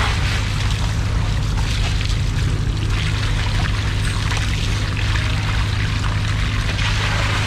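Running water pouring and splashing over a cut marlin loin as gloved hands rub and rinse it, the splashing swelling and easing. A steady low hum runs underneath.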